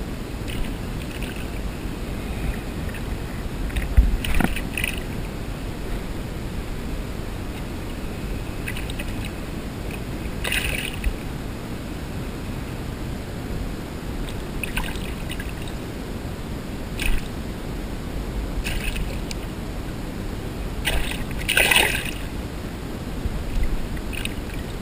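Hooked chain pickerel thrashing at the surface beside a kayak as it is grabbed by hand: a series of short, irregular water splashes, the loudest near the end, over a steady low rumble.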